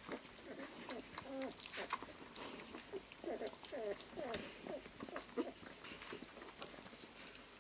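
Three-week-old Irish setter puppies squeaking and whimpering in a series of short, sliding little calls, mostly bunched in the middle, as they jostle to nurse, with faint smacking clicks from suckling.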